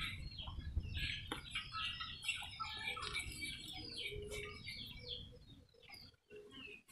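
Small birds chirping busily, many short high calls overlapping one another, with a low rumble underneath; the sound drops out for a moment near the end.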